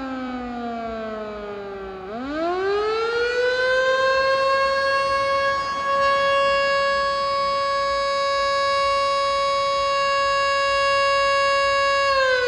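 Federal Signal Model 2 electromechanical siren sounding its daily signal for the end of fishing: its tone falls as it winds down, climbs back up sharply about two seconds in, holds a steady pitch for about ten seconds, then begins to fall again near the end.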